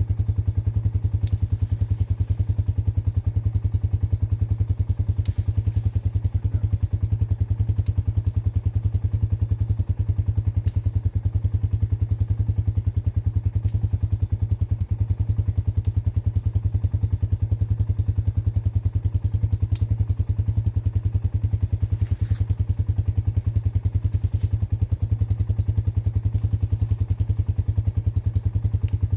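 Four-wheeler (ATV) engine idling steadily, heard up close with the camera resting on the machine, with a few faint clicks over it.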